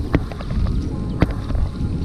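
Wind buffeting the microphone, with a few sharp knocks as a tangled rope strung with plastic floats is hauled in over a kayak.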